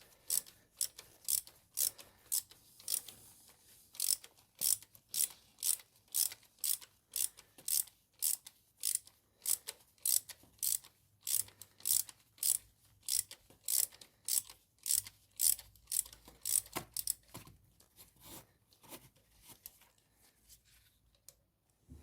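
Ratchet wrench clicking in a steady rhythm, about two clicks a second, as it is swung back and forth to loosen the last of the Duster's spark-plug fasteners. Near the end the clicks slow, grow fainter and stop.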